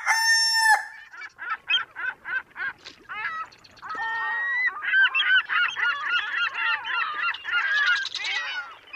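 Birds calling: a held call at the start, then short repeated calls that thicken into many overlapping calls from about four seconds in.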